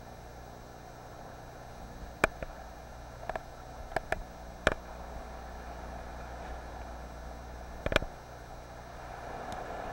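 A steady wash of seawater swirling inside a sea cave, with a handful of sharp knocks or clicks scattered through it, the loudest about two seconds in and near the end.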